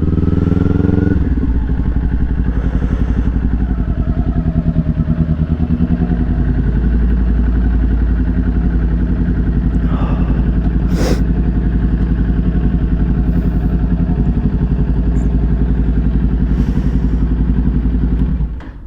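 Kawasaki Ninja 400's parallel-twin engine on its stock exhaust running steadily at low revs, with a quick rise in revs in the first second. A single sharp knock about eleven seconds in, and the engine sound stops abruptly just before the end.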